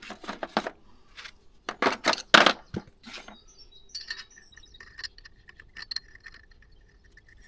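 Small metal parts clinking and rattling, a cluster of sharp clinks in the first three seconds, as an M12 nut is tried on a bolt to check its thread size. Birds chirp faintly in the second half.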